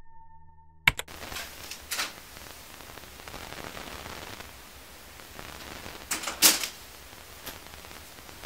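A sharp click about a second in, then a steady hiss with a few clicks and knocks, the loudest pair a little after six seconds in.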